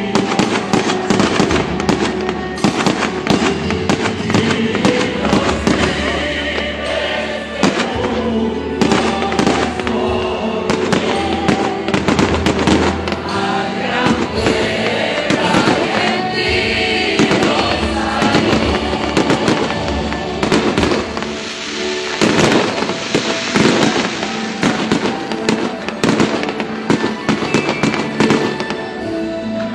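Fireworks banging and crackling in rapid succession over loud music.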